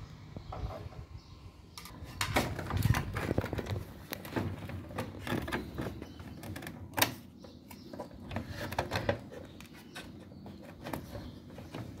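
Irregular plastic clicks, taps and rattles from handling a top-loading washing machine's plastic control panel and its electronic control board, with one sharper click about seven seconds in.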